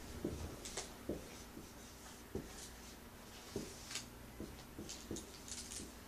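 Marker writing on a whiteboard: faint, short scratchy strokes, a dozen or so, scattered unevenly.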